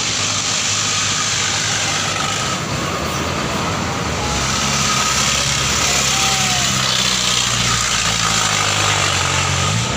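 Large tour bus passing close by: diesel engine running under a steady wash of tyre and road noise, the engine note rising near the end.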